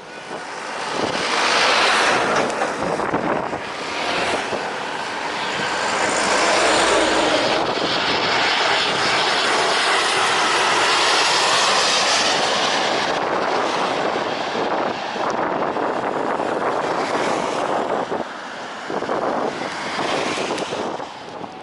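Jet airliner passing low overhead on its landing approach, its engine noise swelling within the first two seconds, staying loud through the middle, then dying away unevenly near the end.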